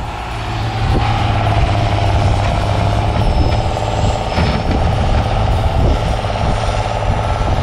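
Engines running steadily: a pickup truck idling close by while a front-loader tractor pushes off through snow drifts. The engine note picks up about a second in and then holds.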